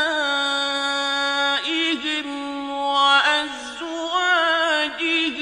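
A male reciter chanting the Quran in melodic tajweed style, holding long notes with ornamented turns in pitch and pausing briefly between phrases.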